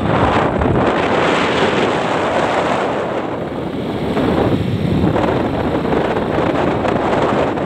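Wind rushing over the microphone of a moving motorcycle, with the bike's running and road noise underneath.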